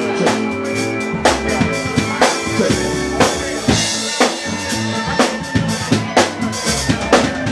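Live soul band playing, with a drum kit keeping a steady beat of snare and bass drum under held chords.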